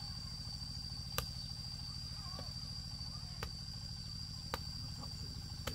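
Crickets or similar insects singing a steady, unbroken high-pitched trill, over a steady low hum. Sharp knocks come about once a second, the kind made by a blade or tool striking.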